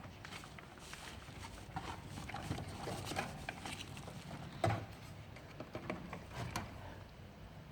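Irregular light clicks and knocks of hands handling plastic tubing and fittings, with one louder knock a little past the middle.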